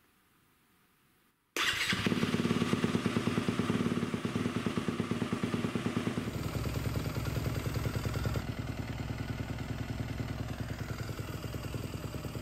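Yamaha YZ250FX's 250 cc single-cylinder four-stroke engine, which comes in suddenly about a second and a half in and then idles steadily with an even pulsing beat. It is being run after an oil change to prime the new oil filter and circulate the fresh oil before the level is checked.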